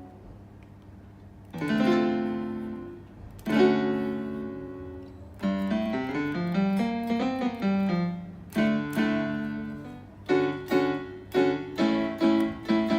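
Roland GR-20 guitar synthesizer played from a guitar, sounding a piano-like voice. There are two ringing chords, then a run of single notes, then short chords repeated about three times a second near the end.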